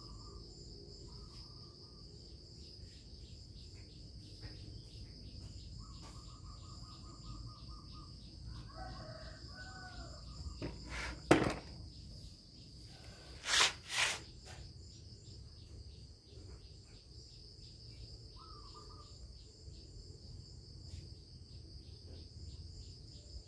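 Steady, high-pitched chirring of insects in the background, with a few short bird calls. A sharp knock about halfway through and two short bursts of noise a couple of seconds later.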